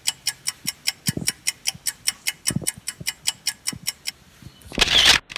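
Clock ticking as a suspense sound effect, an even run of about six ticks a second, followed near the end by a loud whoosh.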